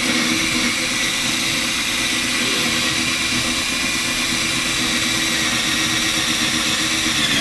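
Household drill running steadily at full speed, driving a 1-inch hole saw into a thick wooden desktop under heavy pressure. The saw has not yet cut through.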